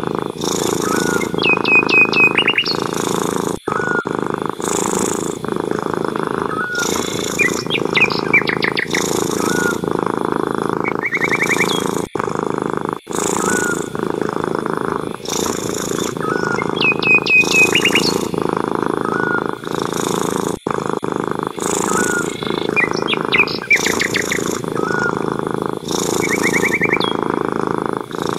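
A cat purring steadily, with short bird chirps and trills breaking in every few seconds.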